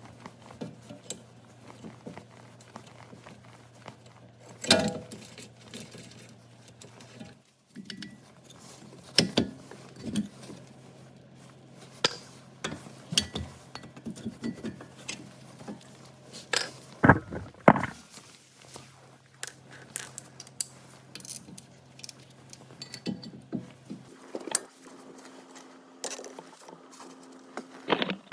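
Hand tools and metal brake parts clinking and knocking during front brake work: scattered sharp metal clinks and knocks, the loudest around five, nine and seventeen seconds in, over a faint steady hum.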